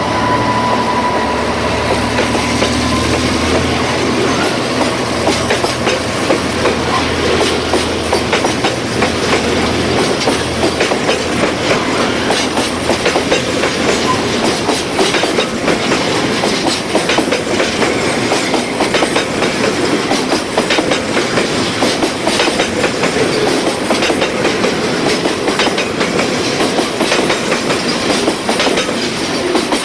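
A diesel-hauled train passing close by: a low engine drone fades over the first few seconds, then the wagons rattle and clack continuously over the rail joints. A thin steady whine is heard at the start and dies away within a few seconds.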